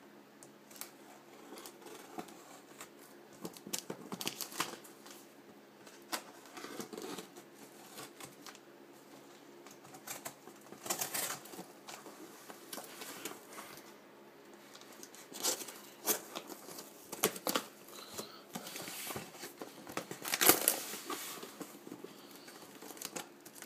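Packaging being opened and handled by hand: irregular crinkling, tearing and rustling with small clicks, and several louder bursts of rustling, over a faint steady hum.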